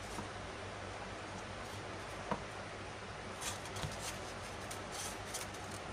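Thermocol (polystyrene foam) pieces handled and rubbed against each other, with one sharp click about two seconds in and a run of brief scratchy foam-on-foam sounds in the second half.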